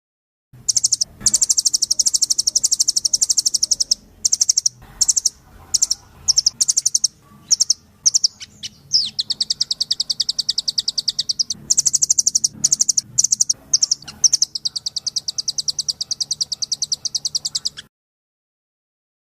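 Recorded songbird song used as masteran training audio: long runs of fast, evenly repeated high chirps broken by short gaps, starting and stopping abruptly as edited clips with dead silence before and after.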